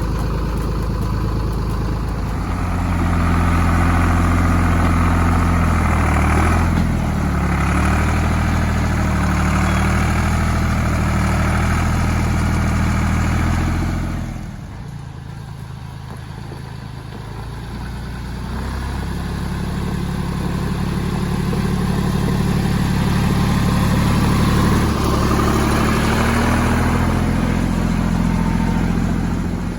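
Tractor engine running and working, its pitch shifting a couple of times. It drops off sharply about halfway through, then builds back up to full level.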